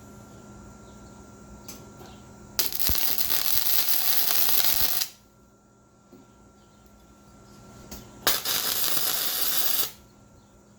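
MIG welder running two welds, most likely joining the steel pipe handle upright onto the bar. It gives a crackling hiss of about two and a half seconds, then a shorter one of about a second and a half a few seconds later, each starting and stopping abruptly.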